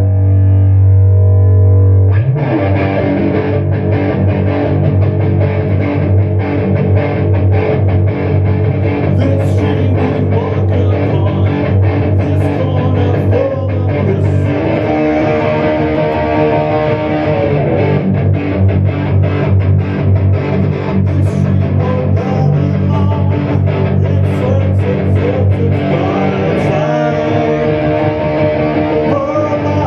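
Rock music played on distorted electric guitar, bass guitar and drums. A held chord rings out, then about two seconds in the full band comes in with a steady drum beat.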